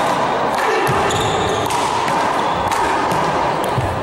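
Handball rally: a rubber handball smacks against the wall and floor and off players' hands, several sharp hits about a second apart, over a steady background hum.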